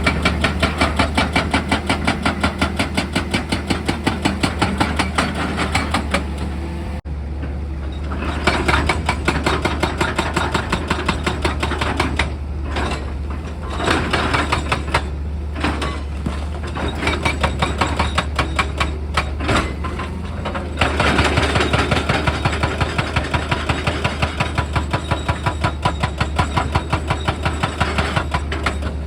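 Percussive hammering on rock, rapid blows about five or six a second over a steady diesel engine hum, stopping and starting again several times.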